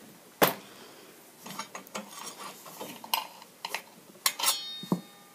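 Loose metal parts of a circular saw clicking and clinking as they are handled: the loosened arbor bolt, washer and socket. There is a sharp click about half a second in and a brief metallic ring about four and a half seconds in.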